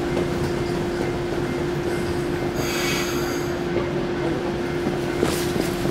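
Shinano Railway 115 series electric train standing at the platform with its equipment running: a steady hum under a noisy background, with a short high-pitched hiss about two and a half seconds in.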